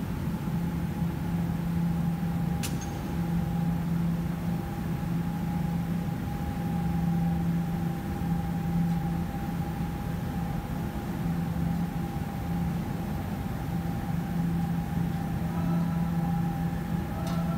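Electric fuel pump module running steadily in its tank on a bench test, a constant whine over a pulsing low hum, with two faint clicks.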